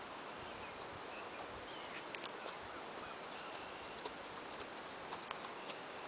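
Faint hoofbeats of a Morgan mare and foal walking on gravel: a few scattered crunching clicks over a steady outdoor background. A rapid high trill runs for about a second around the middle.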